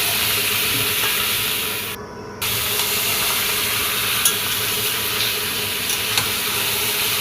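Chicken pieces frying in hot oil in a kadai with onions and potatoes: a steady sizzle. It drops out briefly about two seconds in, with a couple of light clicks later.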